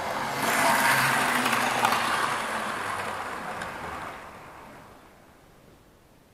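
Model train running on the track, a steady motor hum with rolling wheel noise. It is loudest about half a second in as it passes close, then fades away over the next few seconds until it is faint.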